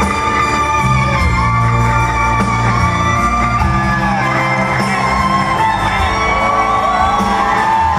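Rock music: a lead electric guitar plays a solo of gliding, bent notes over sustained band backing.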